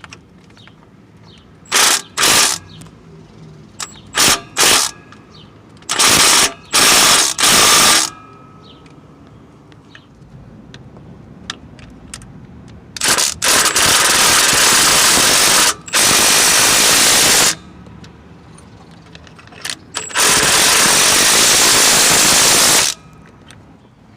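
Impact wrench run in bursts: a few short blips, then longer runs of two to three seconds each in the second half.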